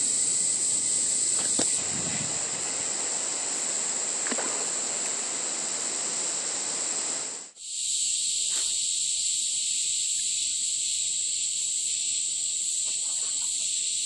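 Cicadas droning in a steady, high-pitched chorus, with a lower hiss of noise beneath it for the first half. The sound drops out for an instant just past halfway, then the chorus carries on.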